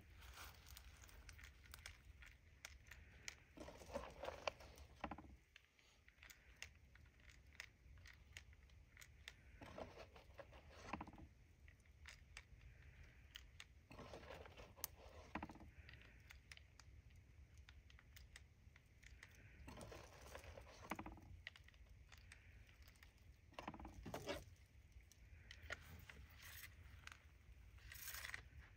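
Faint clicks, scrapes and rustles of .22 LR cartridges being handled and fed one by one into the Remington Nylon 66's tube magazine through the butt stock. The small noises come in clusters every few seconds.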